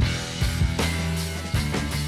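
Background music with a steady drum beat over sustained bass notes.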